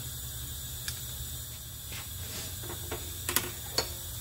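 Light metallic clicks and taps from the parts of a disassembled Graco T1 transfer pump being handled while its seals are removed. The taps are scattered, with the sharpest ones a little past three seconds in, over a steady low hum.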